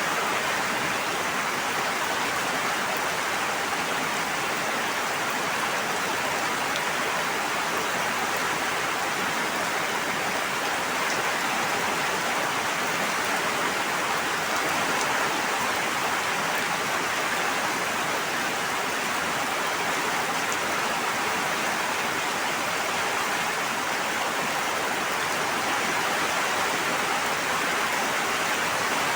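Steady, even rush of flowing water with no swells or breaks.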